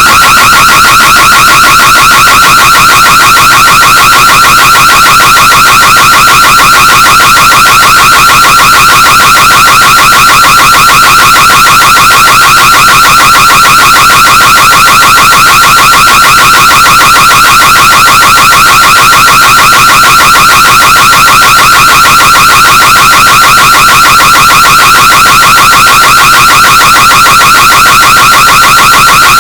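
Burglar alarm sounding without a break: a single high-pitched electronic tone pulsing rapidly. It is pushed to full volume and overdriven until it distorts.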